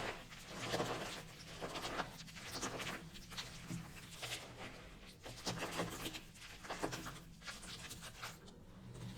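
Soap coated in starch being crushed and crumbled, giving soft crackling, crunching bursts at an uneven pace, a new one every half second to a second.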